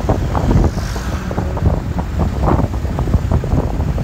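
Wind buffeting the microphone of a moving motorcycle: a loud low rumble broken by irregular gusts, with the bike's running noise underneath.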